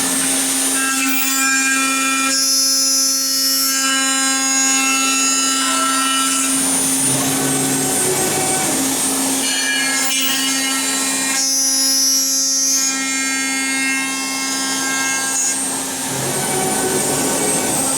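High-speed HSD spindle of a CNC machining center milling an aluminium profile: a steady whine under cutting noise that turns harsher and higher twice, about two and a half seconds in and again about eleven and a half seconds in.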